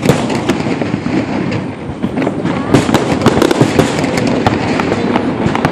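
Fireworks going off in rapid succession: a dense, continuous run of bangs and crackles, with one especially sharp crack about three seconds in.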